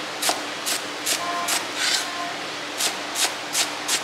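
Chinese cleaver chopping fresh cilantro on a thick round wooden chopping board: about nine sharp chops at roughly two to three a second, with a brief pause about two seconds in.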